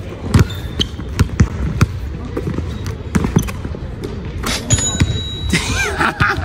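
Basketball bouncing on a hard court in irregular bounces during play. Near the end come two short bursts of hiss with thin high squeaks.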